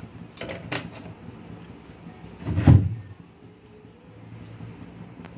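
Kitchen handling noises: a few light clicks about half a second in, then one dull thump near the middle, like a cupboard door or utensil being knocked.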